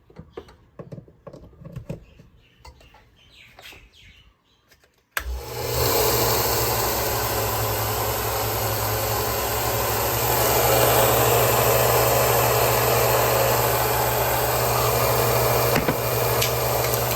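A few quiet knocks, then about five seconds in a Bucktool 1x30-inch belt and disc sander combo switches on suddenly and runs steadily, its motor, belt and disc making a loud whir with a low hum under it.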